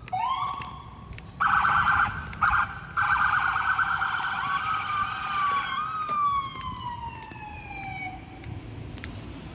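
Emergency vehicle siren: a short rising whoop, then a fast warbling yelp from about a second and a half in, then a long wail that falls slowly in pitch and fades near the end.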